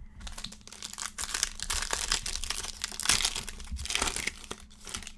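Foil wrapper of a Panini Select football card pack being torn open and crinkled by hand, a dense run of crackles and rips that is busiest about three to four seconds in.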